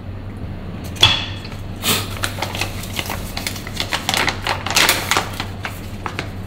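A moka pot being handled: sharp metal clinks and clicks, the first about a second in with a short ringing tone, then a run of quick irregular clatters.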